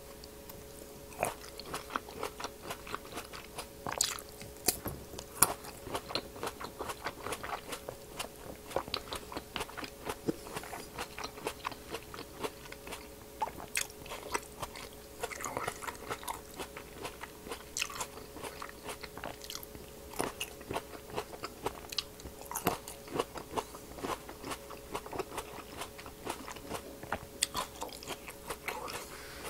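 Close-miked biting and chewing of large fresh black grapes: many quick, irregular crisp crunching clicks. A faint steady hum sits underneath.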